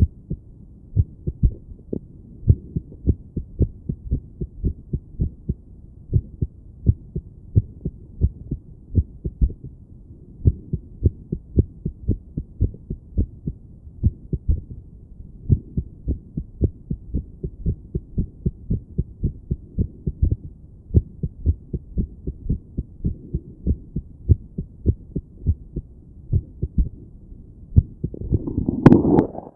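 A woman's heartbeat heard through a stethoscope on her chest, a fast train of low thumps beating irregularly. Near the end comes a loud scraping rustle, louder than the beats, before the beats stop.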